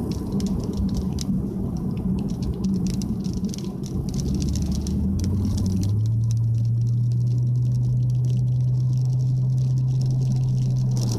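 Cabin noise of a Nissan Y50 Fuga 350GT driving on a wet road: tyre hiss with water spray pattering against the body for the first few seconds. About four seconds in, a low engine and exhaust drone from its 3.5-litre V6 rises in pitch, then holds steady as the car cruises.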